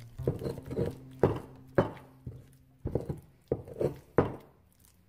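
Stone pestle mashing avocado in a granite molcajete: a run of uneven knocks, roughly two a second, as the pestle strikes through the mash against the stone bowl.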